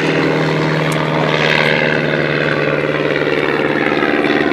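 Pitts Special S-1S aerobatic biplane's engine and propeller running, heard from a camera on the aircraft, its note swelling about a second and a half in and then easing a little.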